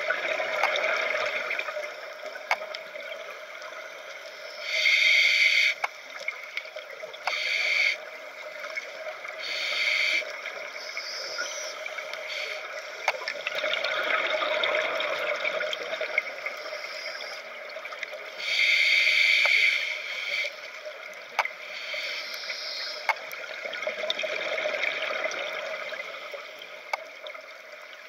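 Scuba regulator breathing underwater, heard through a camera housing. Exhaled bubbles rush out in bursts of a second or so, five times at irregular intervals, over a steady watery hiss with occasional faint clicks.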